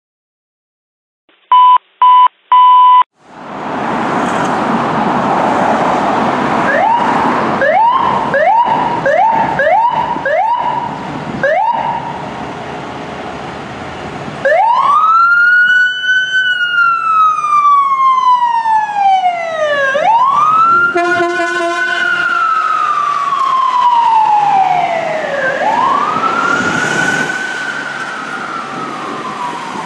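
Three loud electronic beeps, then a run of short rising siren chirps, about two a second, over steady vehicle noise. Then a fire department rescue ambulance's electronic siren wails in long sweeps that rise quickly and fall slowly, with a horn blast for about two seconds partway through.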